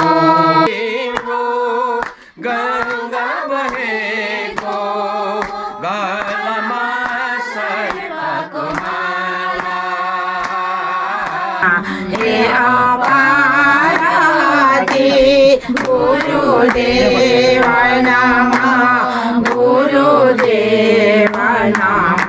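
A group of voices singing a Hindu devotional bhajan to Shiva, with sharp percussive beats keeping time. The sound grows fuller and lower about halfway through.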